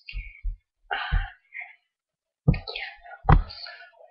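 A voice speaking or vocalising in short bursts, with stretches of dead silence between them.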